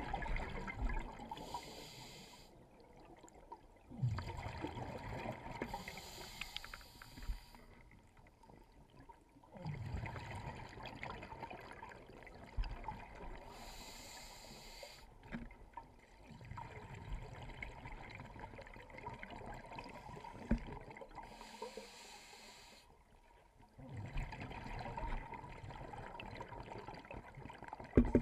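Scuba regulator breathing underwater: a short hiss on each inhale, then a longer stretch of low bubbling as the exhaled air escapes, about four breaths in a slow, even rhythm.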